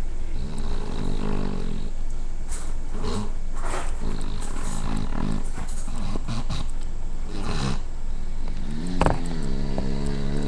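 A woman snoring: a run of short, rough, pitched snores with gaps between them, and a longer drawn-out one near the end.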